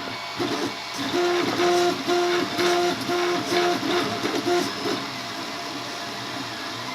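3D printer's stepper motors singing one steady pitch in about eight short, evenly spaced moves back and forth, over the printer's steady background hum.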